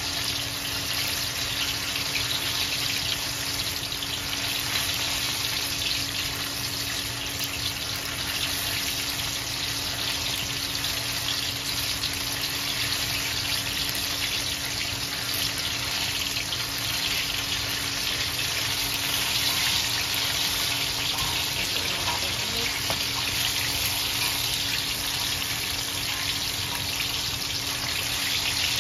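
Chicken wings deep-frying in hot oil under a mesh splatter screen: a steady, even sizzle.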